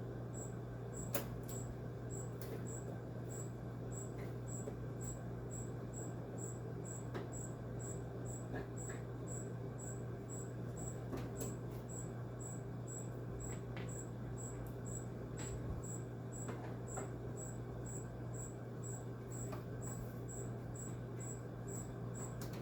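Occasional light clicks of a screwdriver working screws out of a window air conditioner's metal case, over a steady low hum and a high, even chirp repeating about twice a second.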